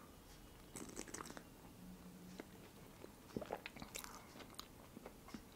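Faint close-miked sipping and swallowing of hot chocolate topped with marshmallows from a glass, with soft mouth clicks and a brief low hum about two seconds in.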